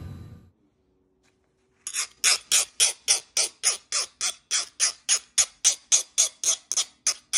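A Tsubosan HRC65 hardness test file scraped in quick, even strokes across a freshly quenched wootz crucible steel dagger blade, about four strokes a second, starting about two seconds in: a file test of whether the blade hardened in the quench.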